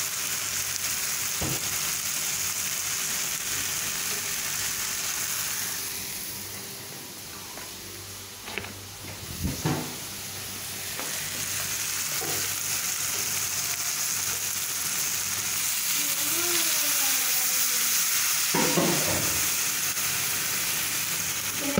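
Vegetables and fried cubes sizzling in a stainless steel pot over a gas burner, a steady frying hiss. It grows quieter for a few seconds from about six seconds in, then comes back. A couple of sharp knocks sound early on and around the middle.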